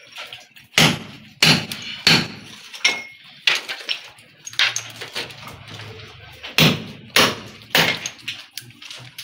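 Hand hammer striking a plastered masonry wall, breaking a hole through it: a series of sharp blows about two a second, with a pause of about two seconds in the middle.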